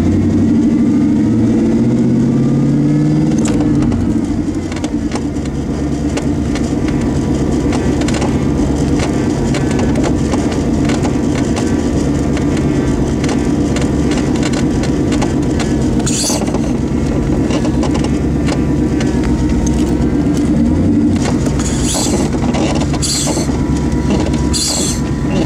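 5.0 Mustang V8 engine running steadily, its pitch gliding up and down over the first few seconds. Short sharp noises come about sixteen seconds in and several times near the end: the front-end popping noise being chased.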